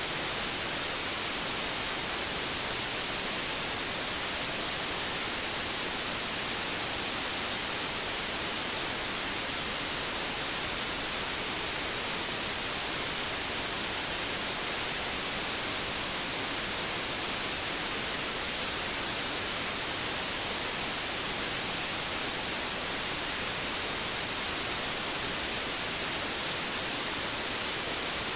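Steady white noise: an even, unchanging hiss, brightest in the highs.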